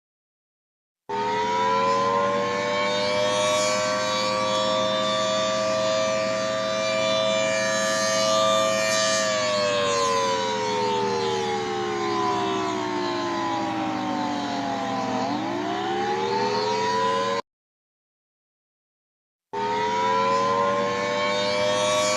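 Dual-tone outdoor warning siren that winds up to a steady two-note wail and holds it, then winds down over about six seconds and starts winding back up. A low steady hum runs underneath, and the sound cuts to dead silence for about a second at the start and for about two seconds near the end.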